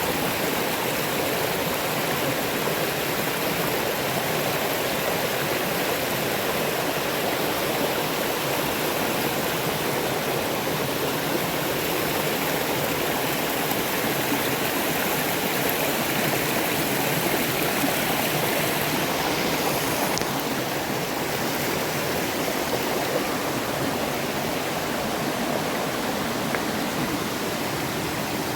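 Rushing river water: a steady, unbroken rush of noise.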